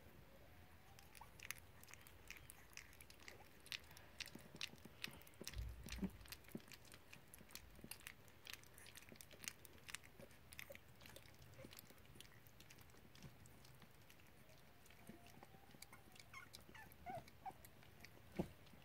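A puppy lapping and licking soft mush from a plastic bowl: a faint, quick run of small wet clicks and smacks that thins out toward the end.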